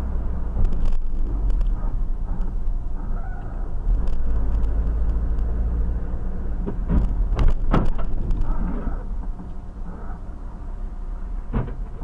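Steady engine and tyre rumble heard from inside a vehicle driving on a snowy highway, with a few short knocks about seven to eight seconds in and another near the end.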